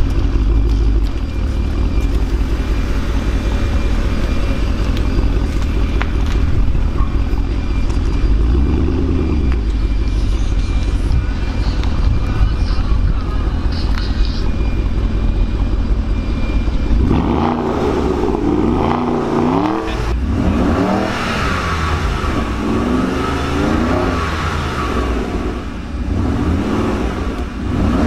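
Porsche Panamera Turbo's twin-turbo V8 idling steadily through a REMUS stainless steel sport exhaust, with one short blip about a third of the way in. From a little past halfway it is revved repeatedly, rising and falling five or six times.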